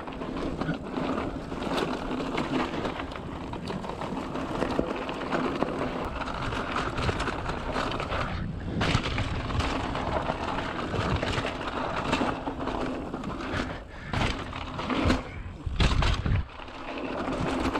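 Mountain bike rolling fast over a loose, gravelly trail: steady tyre crunch with the bike rattling over bumps. There are sharp knocks throughout and a louder, deep thud-and-rumble near the end.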